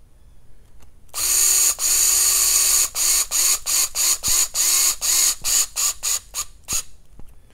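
Cordless electric driver driving a screw into an RC crawler's plastic chassis: a steady motor whine for about two seconds from about a second in, then about ten short trigger bursts, each spinning up quickly, as the screw is snugged down.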